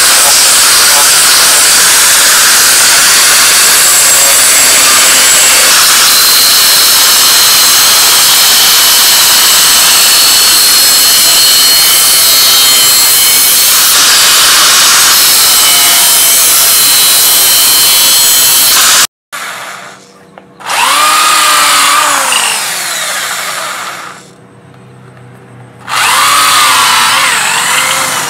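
Angle grinder with a sanding disc running steadily against a wooden handle for about nineteen seconds. After a short break, an electric drill spins the wooden handle while it is sanded, its motor pitch sweeping up and down, dropping quieter for a couple of seconds before running up again.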